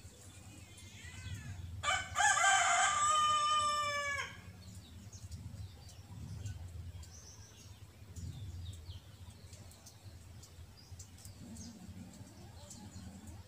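A rooster crowing once, a single drawn-out call of about two and a half seconds that starts about two seconds in and dips in pitch at its end.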